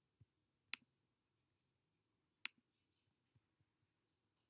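Two sharp single computer mouse clicks, about a second and a half apart, over near silence.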